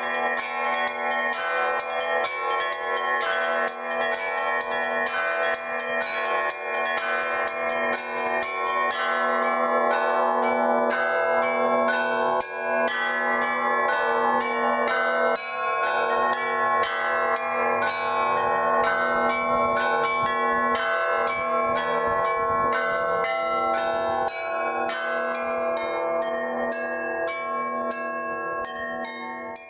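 Russian Orthodox church bells rung by hand from a bell tower in an improvised zvon. Fast runs on the small bells, dense at first and then spaced into separate strokes, sound over regular strokes of a larger, lower bell.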